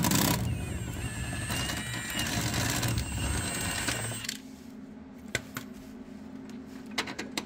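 Handheld power tool running steadily for about four seconds on the rear toe arm bolt, loosening it, then stopping abruptly. A few light metallic clicks follow near the end.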